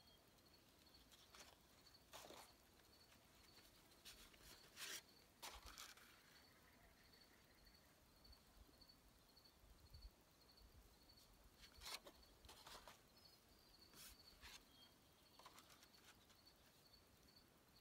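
Near silence, with a few soft rustles of paper sheets being set down on and lifted off concrete, and a faint high chirping repeating evenly in the background.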